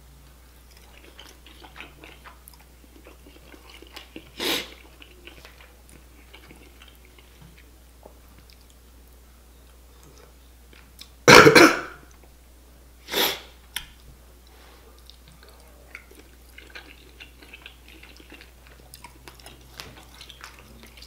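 Close-miked chewing and wet mouth sounds of a person eating a deshelled seafood boil, with many small clicks. Three short, louder bursts stand out, about four, eleven and thirteen seconds in, the middle one the loudest.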